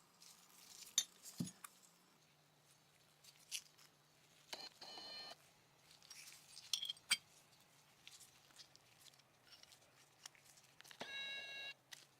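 Small steel pistol parts clicking and clinking as they are handled, with sharp clicks about a second in and again near the middle. Two short squeaks, one midway and one near the end, sound like metal rubbing against metal.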